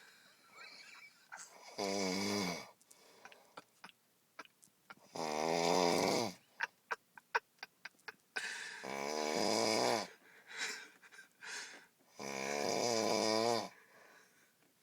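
A man passed out drunk, snoring loudly: four long snores about every three and a half seconds, with a quick run of clicking rattles between the second and third.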